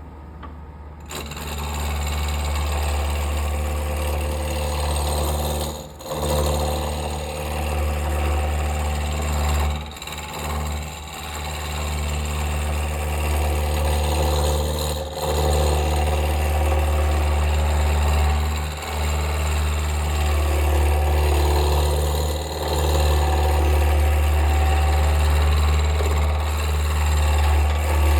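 Wood lathe running with a chisel roughing a square wood blank down toward a cylinder: a steady low hum under a rough cutting noise that starts about a second in and drops away briefly several times as the tool moves across the work.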